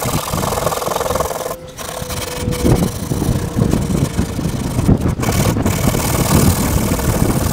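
Sandpaper rubbed by hand over the rusted van body panel behind the rear wheel, abrasive scratching on paint and metal, with a low rumble underneath.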